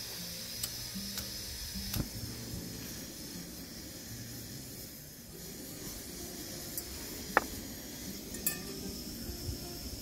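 A small frying pan and utensils giving a few light metal clicks and clinks while olive oil heats in the pan, over a steady soft hiss. The sharpest click comes about seven seconds in.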